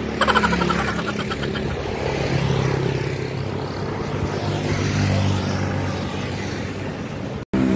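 Highway traffic passing: motorcycles and cars going by with a steady engine hum, and a brief rapid buzzing from a passing motorcycle just after the start.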